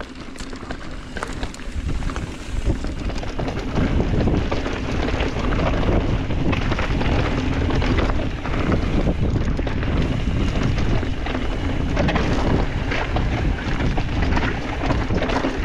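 Wind rushing over the camera microphone on a moving mountain bike, with the tyres on the trail and frequent short clicks and rattles from the bike over rough ground. The rush builds over the first few seconds, then holds.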